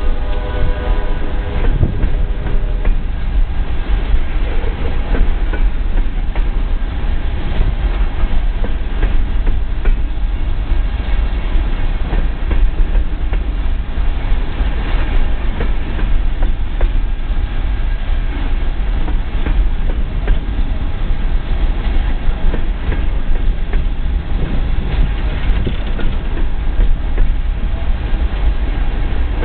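Coal hopper cars of a freight train rolling past at close range: a steady heavy rumble with a continual clickety-clack of steel wheels over the rail joints.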